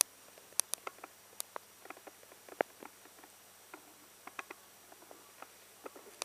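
Paper pages of an instruction booklet being handled and turned: scattered, irregular short crackles and taps of paper.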